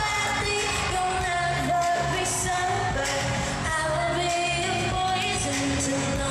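Pop song performed live, a woman singing over a steady beat.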